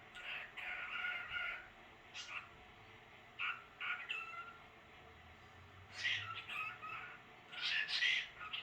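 Pet cockatiel chirping and chattering in short bursts of calls, loudest near the end.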